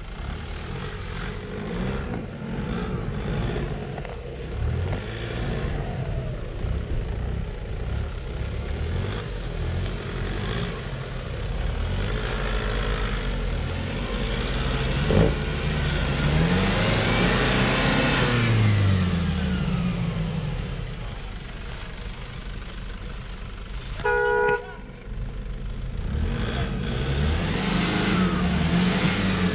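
Nissan Patrol Y61's ZD30 3.0-litre four-cylinder turbo-diesel engine working under load, revving up and falling back again and again as the truck climbs over rough ground. There is a single sharp knock about halfway through and a short beep about three-quarters of the way in.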